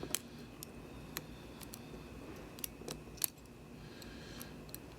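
Small, irregular metallic clicks and ticks of a lock pick and tension wrench working the pins inside a lock cylinder, with two sharper clicks, one just after the start and one a little past three seconds in.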